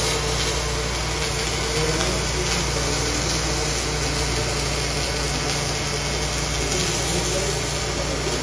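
Robotic CMT (cold metal transfer) MIG welding arc, starting suddenly and then running steadily with an even hiss and buzz as it deposits metal for additive manufacturing.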